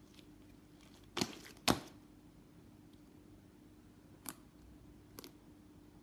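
Sticky butter slime being squeezed and pulled by hand, giving a few short sticky pops: two close together a little over a second in, the second one the loudest, then two fainter ones later.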